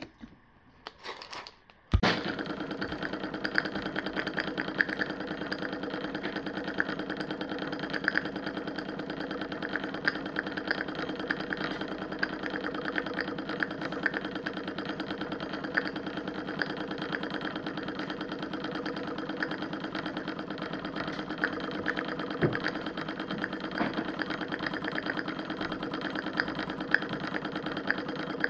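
Small model oscillating-cylinder engine running fast with an even mechanical clatter. It starts abruptly about two seconds in.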